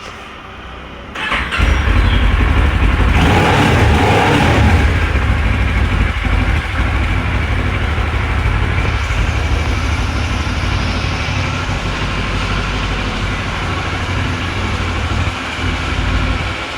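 Kawasaki Ninja 650R's parallel-twin engine starting about a second in, louder for a couple of seconds after it catches, then running steadily.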